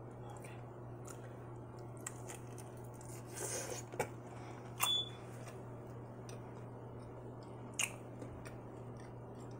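A person chewing a bite of oven-baked chicken, with faint wet mouth smacks and clicks and a few louder ones near the middle.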